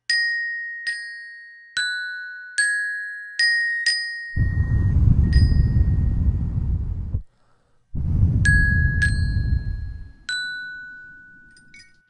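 Glockenspiel struck with a mallet, single notes left to ring out, about six in the first four seconds and three more near the end. Twice in between, a loud low rumbling noise cuts in and stops abruptly, each time for a few seconds.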